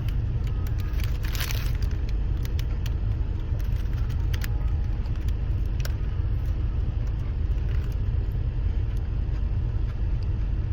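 Steady low rumble, with scattered light clicks and a brief rustle about a second and a half in.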